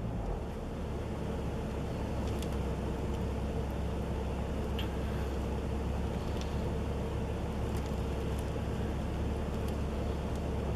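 Wind rumbling on the microphone, steady throughout, with a faint hum and a few light ticks.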